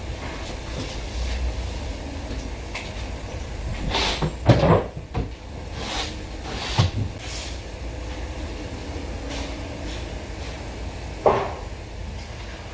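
Building-work noises on an interior construction job: a handful of knocks and clatters over a steady low hum, the loudest a cluster about four and a half seconds in, with another sharp knock near the end.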